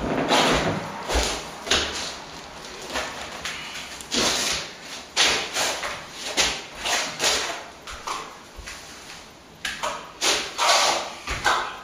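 Plastering trowel scraping and sliding over a wet corner-cement set coat on a wall, in repeated sweeping strokes about one a second.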